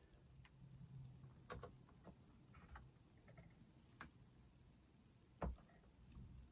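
Near silence: a few faint, light clicks and taps, the loudest about five and a half seconds in, over a faint low steady hum.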